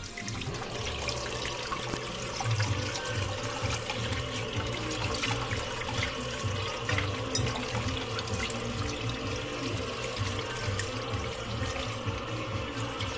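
Kitchen tap running steadily into a stainless-steel sink while a gutted carp is rinsed by hand under the stream, the water splashing off the fish and hands.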